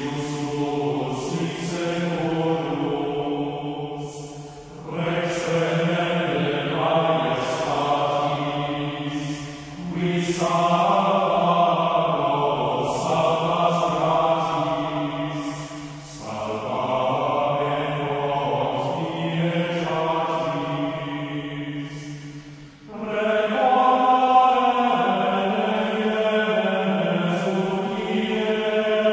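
Choral chant: voices singing long held phrases of about five or six seconds each, with brief breaths between them.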